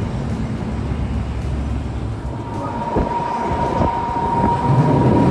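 Boat tram running on street rails, a steady rumble with two knocks from the wheels about halfway through. A steady high whine comes in over the running noise in the second half.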